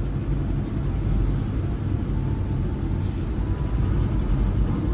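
Steady low rumble of engine and road noise heard from inside the cab of a vehicle moving along an expressway in traffic.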